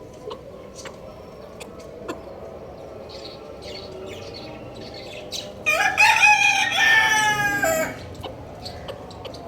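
A rooster crows once, a single crow of about two seconds starting past the middle, with faint scattered clicks before and after it.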